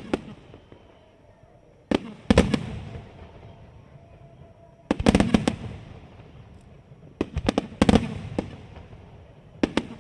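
Aerial fireworks bursting in quick clusters of several sharp bangs, a cluster about every two to three seconds, each followed by a fading, echoing rumble.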